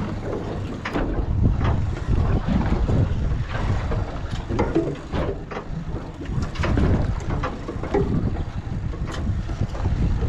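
Wind buffeting the microphone on a small boat at sea, with irregular knocks and slaps.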